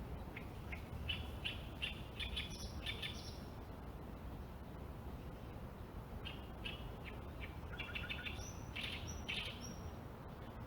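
Small birds chirping: two runs of short, quick repeated calls a few seconds apart, over a steady low rumble.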